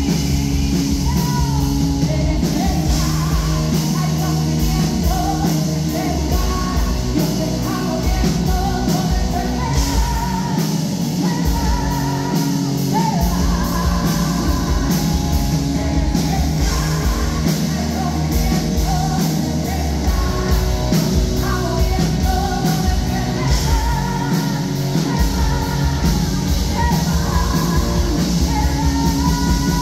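A woman singing loudly into a microphone over worship music with a steady drum beat, all coming through a loud PA system.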